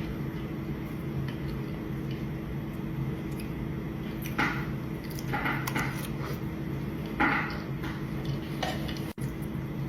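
Mukbang eating sounds: a few short, wet squelches and clinks of food and utensils, over a steady low hum.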